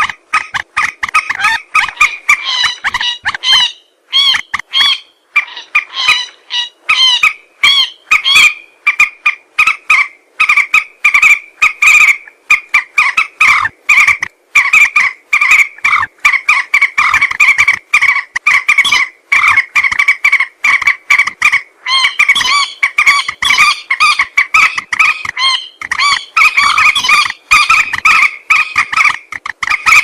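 Common moorhen calling: a rapid, almost unbroken series of short, sharp call notes, several a second, thinning out with brief gaps about four to eight seconds in.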